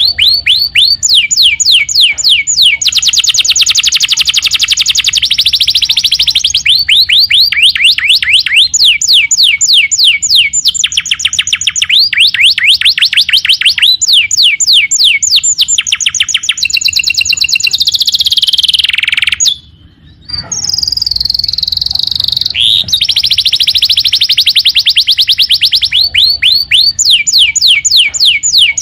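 Domestic canary singing: fast trills of repeated downward-sweeping notes in phrases of a few seconds, with a held high note and a short break about two-thirds of the way through.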